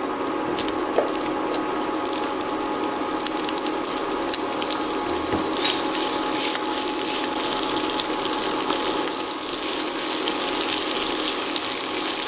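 Sliced onions frying in hot oil with urad dal and dried red chillies in a kadai: a steady sizzle full of fine crackles.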